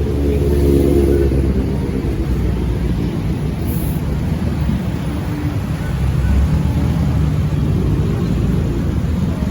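Street traffic: motor vehicle engines running close by in a steady low rumble, louder near the start and again about six seconds in.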